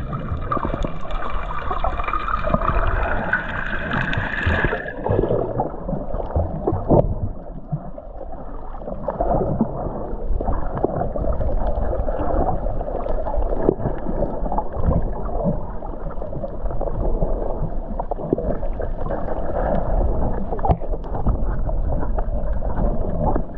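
Muffled underwater water noise and gurgling picked up through an action camera's waterproof housing while snorkeling. A steady rumble runs throughout, with brighter, hissier sound for the first five seconds or so, then duller.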